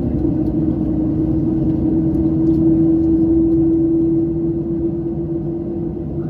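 Boeing 737-800 cabin noise: a steady low rumble with a strong steady hum that edges slightly higher in pitch about two seconds in.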